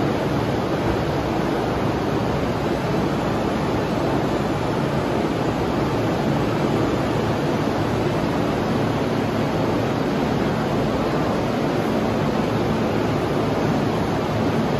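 Steady rushing noise of a JR East E231-800 series commuter train standing at an underground subway platform with its onboard equipment running.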